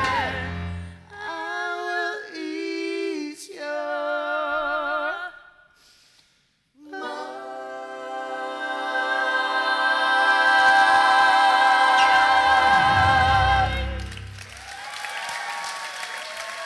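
Voices singing a cappella in close harmony: short phrases with vibrato, a brief pause, then a long held closing chord that fades out about fourteen seconds in. A few seconds of applause follow.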